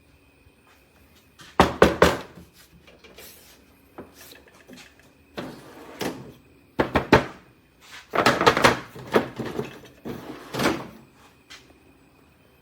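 Workbench drawers being pulled open and pushed shut, in about five loud clattering bursts with a thunk at each close.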